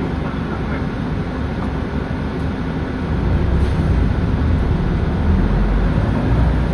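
Cabin sound of a 2007 Nissan Diesel Space Runner RP city bus: the diesel engine's steady low rumble, growing louder about three seconds in as the bus pulls forward from a standstill.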